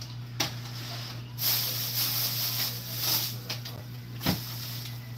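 Groceries being handled and put into an open refrigerator: a click, a hissing rustle lasting about two seconds, and a knock about four seconds in, over a steady low hum.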